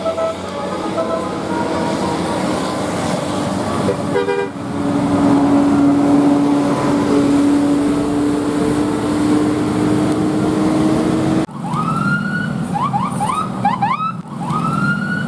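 Indonesian 'telolet' musical bus horn. It opens with short stepped notes, then holds one long steady low tone. About eleven and a half seconds in the sound changes abruptly to rising siren-like whoops and quick rising chirps.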